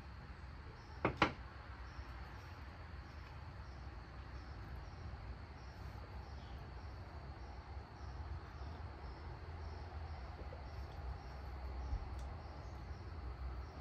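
Crickets chirping steadily: a continuous high trill with a softer pulsed call repeating evenly above it. About a second in come two sharp clinks as a glass tea cup is handled.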